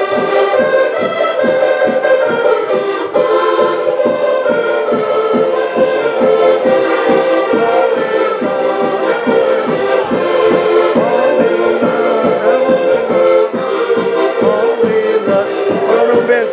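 Portuguese folk ensemble of several diatonic button accordions playing a lively tune together over a steady bass-drum beat.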